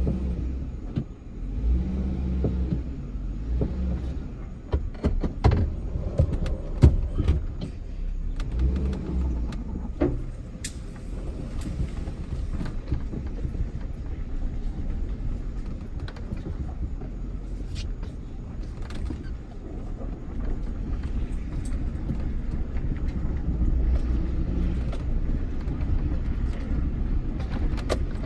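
Truck driving at low speed, a steady low engine and road rumble, with a few sharp knocks and rattles about five to seven seconds in.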